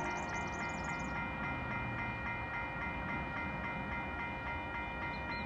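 Level crossing warning bell ringing in a fast, steady repeating pattern over a low rumble. The tail of a train horn dies away in the first second.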